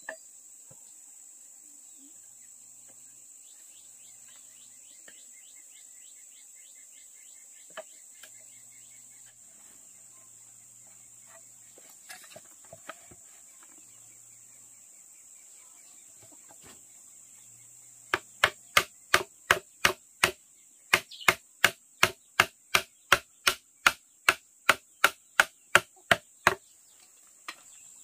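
Insects chirping as a steady high hiss, with a few faint knocks. About eighteen seconds in, a quick, even run of sharp chopping strokes starts, about three a second, with a brief break partway; the strokes stop shortly before the end.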